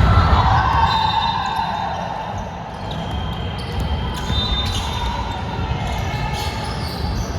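Basketball game sounds in a gym: a ball bouncing on the court, with scattered short knocks and a background of voices.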